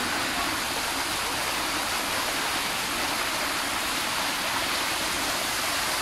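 Small waterfall cascading down a rock face: a steady, unbroken rush of splashing water.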